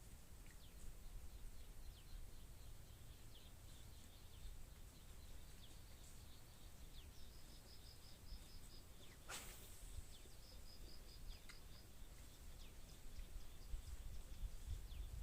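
Faint outdoor ambience of small birds chirping, with two quick rapid trills in the second half and a single sharp falling swish about nine seconds in, over a low rumble of wind.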